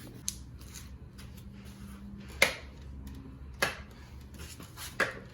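Plastic blind-spot cover of a Chrysler 300 side mirror being pulled off its clips: four sharp plastic clicks and snaps, the loudest about two and a half seconds in.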